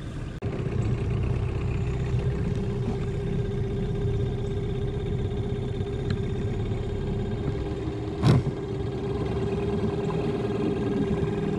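Boat outboard motor running at low speed, a steady drone. One sharp knock sounds about eight seconds in.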